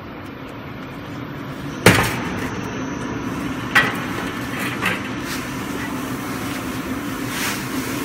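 Steady hum of the rice husk carbonization furnace's machinery running, with a sharp knock about two seconds in and a few lighter knocks after it.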